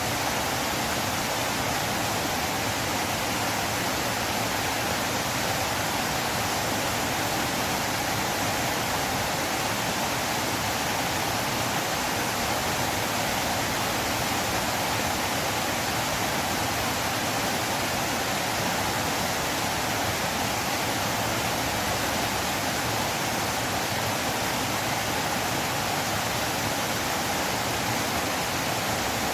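Flowing river water rushing steadily, an even wash of noise with no changes.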